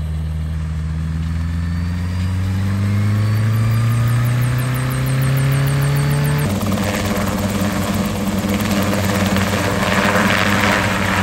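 Kompress two-seat kit helicopter running up to take-off power, the engine and rotor note rising steadily over about six seconds. Then a fuller, rougher rotor and engine sound that swells near the end as it lifts off into a low hover.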